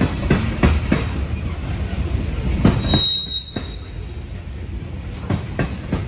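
Loaded coal hopper cars rolling past on rails: a steady low rumble with sharp wheel clacks, as the train crosses over from one track to another, and a brief high wheel squeal about three seconds in.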